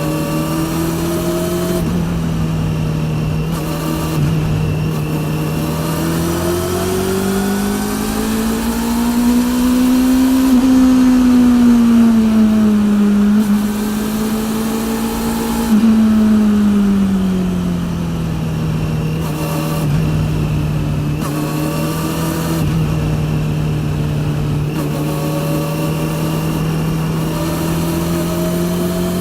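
Honda CB400 (NC42) inline-four through a TSR E02 slip-on exhaust, running on the road: a steady engine note whose revs climb and ease off twice in the middle, then settle back to the steady note.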